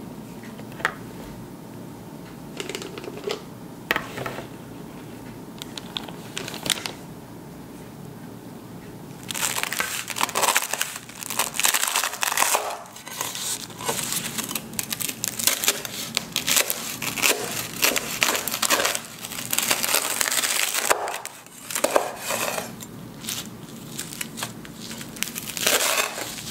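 A knife sawing through crisp, sugar-glazed baked puff pastry sheets for mille-feuille, with dense crackling and crunching as the flaky layers shatter, starting about nine seconds in. Before that, only a few faint taps.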